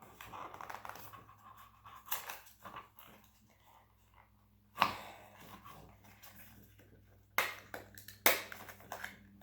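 Packaging of a cosmetic powder being handled and pried at while it resists opening: scattered rustling and small clicks, with three sharp snaps, one about five seconds in and two near the end.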